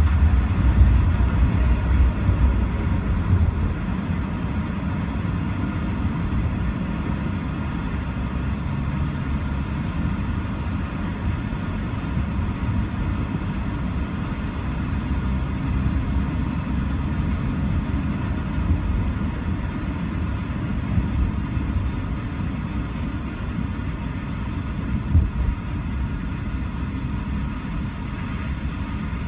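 Steady low rumble of a car's tyres and engine heard from inside the cabin while driving, with a brief louder bump late on.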